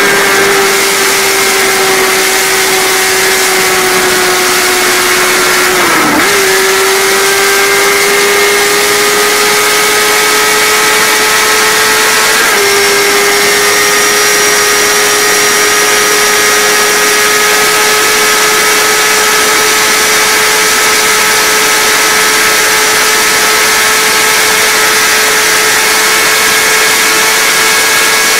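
Kawasaki sport bike engine running at high revs at full autobahn speed, under heavy wind rush. Its pitch dips sharply and briefly about six seconds in and again about twelve seconds in, then climbs slowly.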